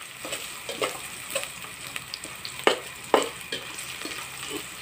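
Garlic, onion and ginger sautéing in oil in a stainless steel pot with a light sizzle, stirred with a metal spoon that scrapes and ticks against the pot, with two sharper clinks about halfway through.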